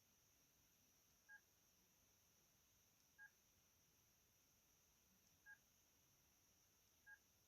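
Sony Ericsson T610 mobile phone's key-press beeps, faint: four short beeps about two seconds apart as the keys step through the pictures.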